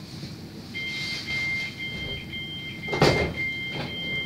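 Train's sliding passenger doors at a station stop: a high two-note warning tone starts about a second in and keeps sounding with brief breaks, and the doors shut with a loud thump about three seconds in.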